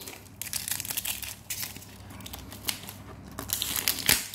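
Clear plastic wrapping crinkling and crackling as it is peeled and torn off a tightly sealed product box by hand, with a sharper, louder crackle about four seconds in.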